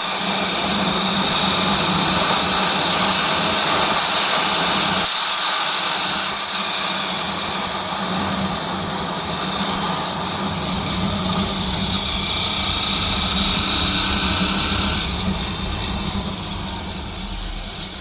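Motorcycle engine running steadily while riding, with constant wind and road noise.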